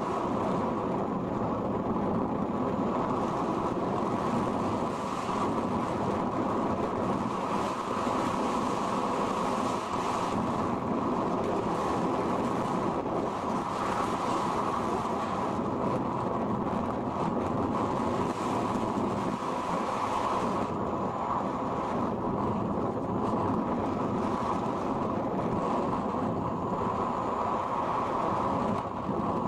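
Steady rush of air over the onboard microphone of an RC sailplane in gliding flight: an even, dull noise with little treble that does not let up.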